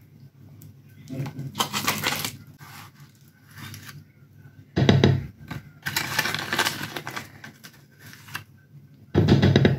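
Crinkling and rustling of a foil-lined powder pouch, with a wooden scoop tapping against a plastic jar as powder is scooped in, in several separate bursts. The two loudest bursts, about five seconds in and near the end, have a dull knock to them.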